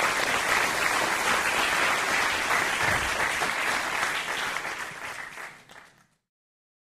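Audience applauding at the end of a lecture, a dense steady clapping that tapers off about five seconds in and then cuts off abruptly.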